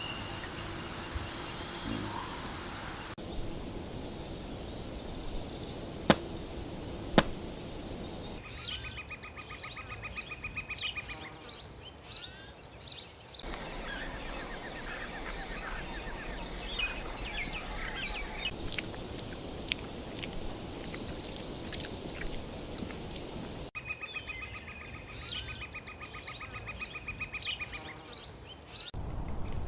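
Forest ambience with scattered bird chirps over a steady hiss, and a fast pulsing trill that comes in twice for a few seconds. Two sharp clicks about six and seven seconds in; the background changes abruptly every few seconds.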